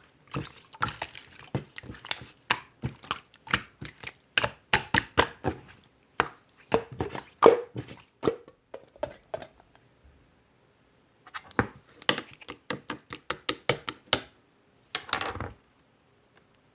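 Slime being pressed and squished by hand, giving rapid irregular clicks and pops. There is a pause of about a second and a half midway, and a short squelching rustle near the end.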